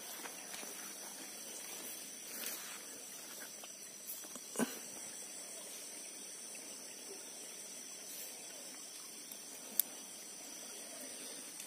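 Steady, high-pitched insect chorus trilling without a break, with a few short sharp clicks over it, the loudest about four and a half seconds in and another near ten seconds.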